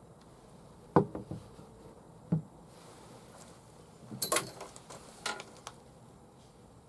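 Light knocks and clicks of hard objects being handled: a few about a second in, one more a little later, then a quick cluster of sharper clicks past the middle and a couple after it.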